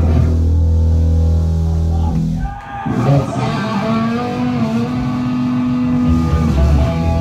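Amplified electric bass and guitar holding long notes. A low note rings for about two seconds and drops out briefly, then a higher note is held for about three seconds.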